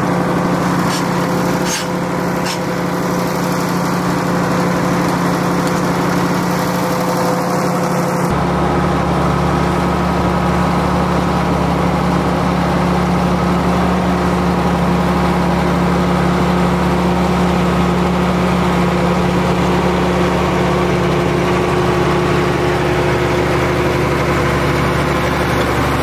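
Tractor diesel engine running steadily while hooked to a vertical TMR mixer wagon that is mixing a feed ration. A few sharp metal clanks from a steel headlock bar come in the first few seconds, and the engine's deep hum gets stronger about eight seconds in.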